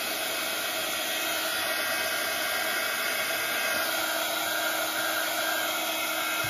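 Small handheld craft heat gun running continuously, a steady rush of blown air with a faint steady whine, drying wet glue-and-coffee coated paper samples.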